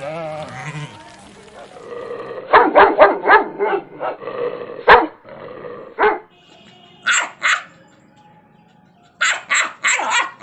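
Dog barking in quick repeated barks, then shorter, higher barks in pairs and small bursts.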